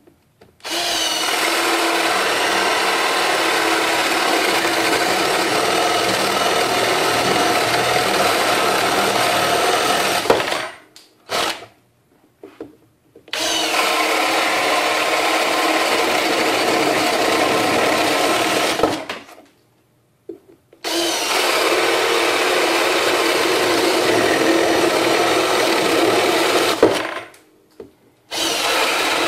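Kimo 20V cordless drill boring holes with a spade bit through a particleboard board. It runs in three long steady bursts of about ten, five and six seconds with short stops between them, and starts again near the end.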